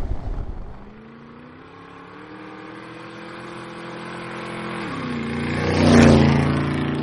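Road-vehicle engine noise during a ride: an engine hum whose pitch creeps slowly upward, then swells to a loud rushing peak about six seconds in as a vehicle goes by close, its pitch dropping as the sound fades.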